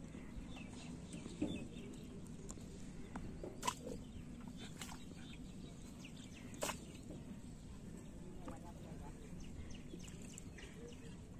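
Faint outdoor ambience: a steady low hum with a few short, sharp ticks scattered through it, the loudest a little before the middle.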